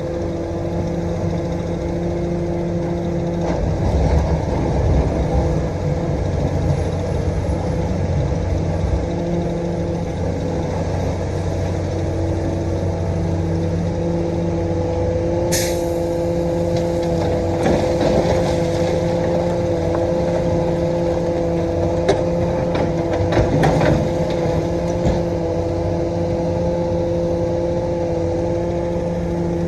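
Komatsu PC450-8 LC excavator's diesel engine running steadily while it digs, with a brief sharp hiss about halfway through and scattered knocks in the second half.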